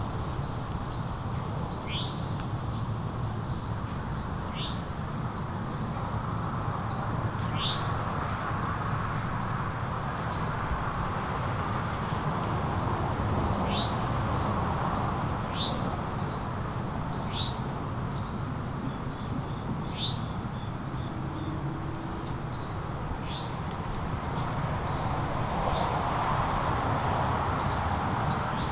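Evening insect chorus of crickets: a steady high drone with short chirps repeating about once a second. A short falling call sounds every few seconds over a low, even background hiss.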